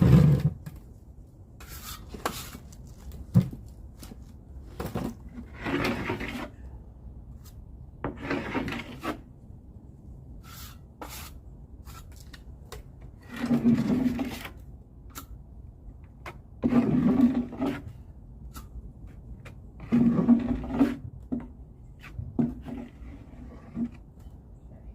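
Drywall taping knife scraping joint compound, a series of separate scraping strokes a few seconds apart with sharp clicks between them.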